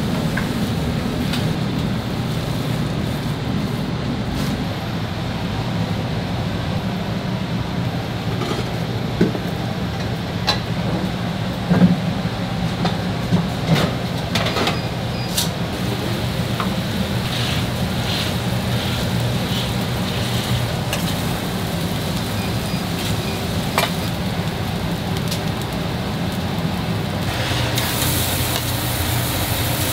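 Food sizzling as it cooks: a steady hiss over a low hum, with scattered sharp clicks and taps partway through. The hiss grows brighter and louder near the end.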